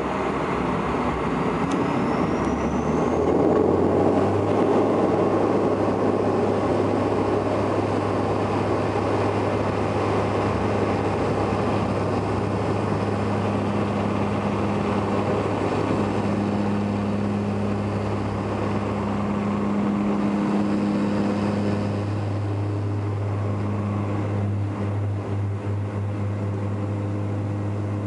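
Bombardier Dash 8 Q400's Pratt & Whitney PW150A turboprops at takeoff power, heard inside the cabin: a steady, low propeller drone with a higher whine, over rumble from the takeoff roll. The aircraft lifts off in the second half and climbs away.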